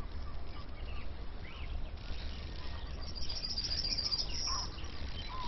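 Birds chirping and calling here and there over a steady low rumble, with a high, rapid trill starting about three seconds in and lasting a second and a half.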